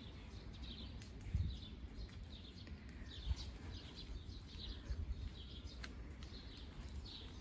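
Small birds chirping, many short high calls scattered throughout, over a low rumble with a few soft thumps.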